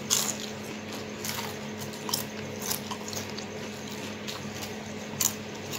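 Lay's potato chips crunching as they are chewed and picked from a bowl: a few short, crisp crackles, spread irregularly over a steady low hum.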